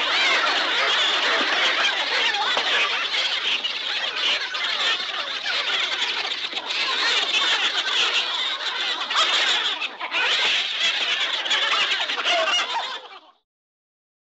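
Cartoon-style telephone conversation sound effect: continuous high-pitched, gibberish voice chatter that cuts off suddenly near the end.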